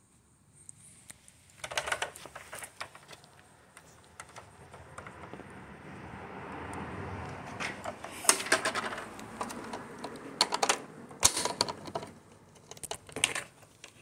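Hard plastic clicking and knocking as the opened housing of an Aiper Seagull Plus robotic pool cleaner is handled and moved, in scattered clusters of sharp clicks, with a soft rubbing sound building in the middle.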